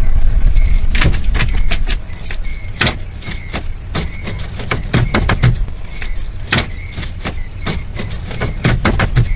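Irregular sharp knocks and clicks, like hand work on a building site, over a heavy low rumble that eases after about two seconds.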